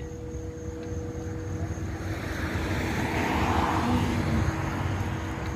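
Airplane passing overhead: a rush of engine noise that swells, is loudest about three to four seconds in, then fades.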